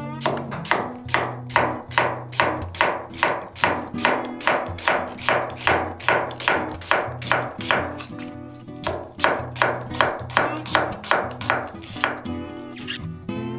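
Kitchen knife slicing an onion on an end-grain wooden cutting board: sharp, even cuts about three a second, with a short pause about eight seconds in before the cutting resumes. Acoustic guitar music plays underneath.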